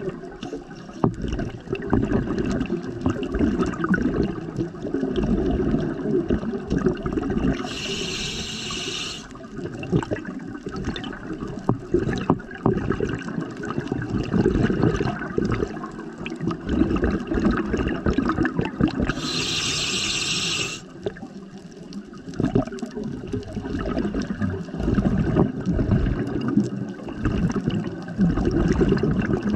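Scuba regulator breathing underwater: two hissing inhalations through the demand valve, about eleven seconds apart, between long stretches of bubbling, gurgling exhaled air.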